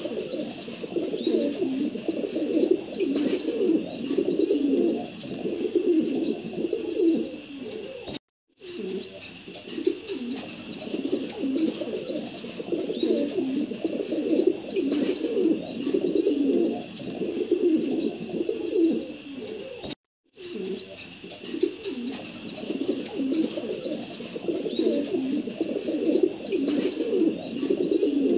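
Many pigeons cooing together in a continuous low murmur, with rows of short high chirps above it. The audio drops out completely twice, about twelve seconds apart, and the same stretch of cooing and chirping repeats in between, like a looped recording.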